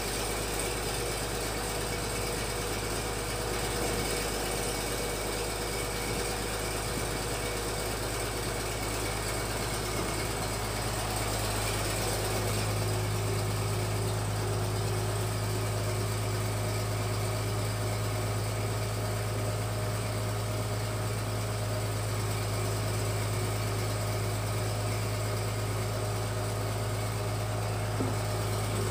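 Engine driving a fish-feed pellet extruder runs at a steady speed while the die pushes out strands of feed. A steady low drone that grows louder about twelve seconds in.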